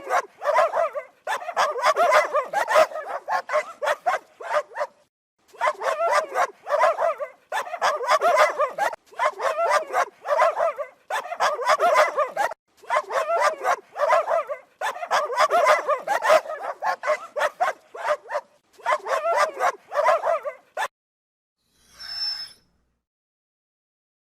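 Dog barking in fast runs of many barks, with short pauses between runs. The barking stops about 21 seconds in, and a brief faint sound follows near the end.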